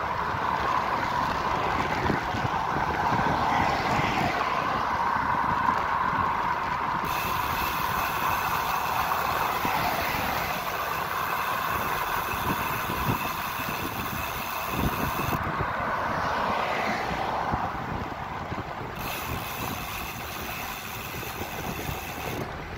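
Wind rushing over a bike-mounted camera's microphone while riding beside road traffic, mixed with the tyre and engine noise of passing cars.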